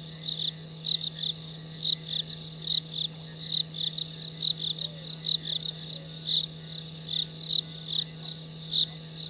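Night insects, crickets by their sound, chirping in a steady repeated pattern of about two high chirps a second. A steady low hum runs underneath.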